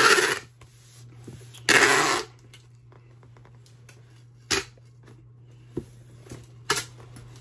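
Clear packing tape pulled off a handheld tape gun in two ripping strokes, each about half a second long, the second about two seconds in. Then a sharp knock and a few lighter clicks as the dispenser and box are handled.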